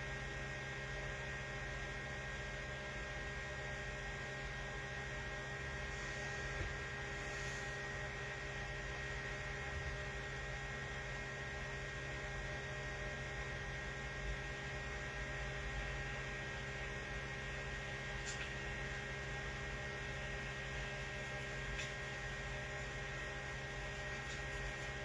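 Steady electrical hum: several fixed tones over a low hiss, with a few faint ticks now and then.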